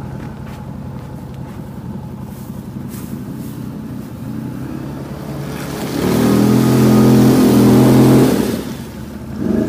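ATV engine idling, then revving hard for about two and a half seconds, starting about six seconds in, before dropping back. A second short rev comes near the end.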